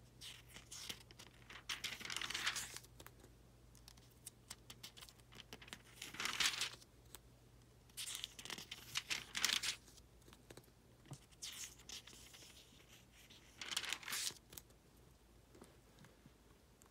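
Thin Bible paper pages being turned by hand: a series of short, soft rustling swishes a few seconds apart.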